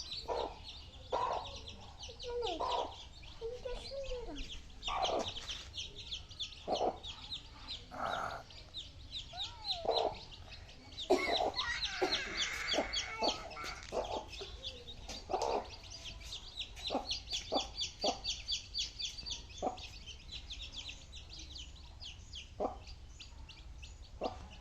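Chicks peeping rapidly and without pause while feeding, with lower clucking calls mixed in. A short scuffling noise comes about eleven seconds in.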